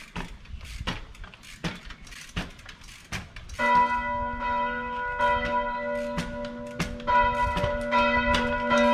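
A trial bike's tyres knocking as it hops step by step down stone stairs. About three and a half seconds in, church bells begin ringing, several pitches sounding together and re-struck every second or two, louder than the bike.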